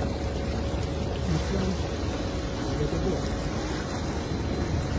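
A vehicle's engine running steadily as it moves through floodwater, with water sloshing and faint voices in the background.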